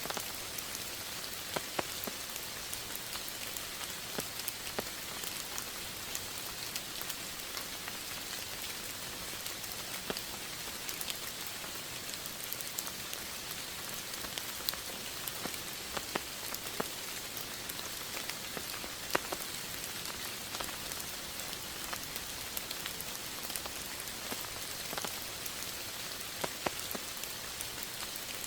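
Steady rainfall, a constant hiss with individual drops ticking sharply against a surface now and then.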